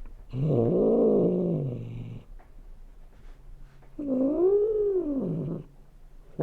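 Domestic cat giving two drawn-out meows, each rising and falling in pitch: the first low and about two seconds long, the second higher and shorter, a couple of seconds later.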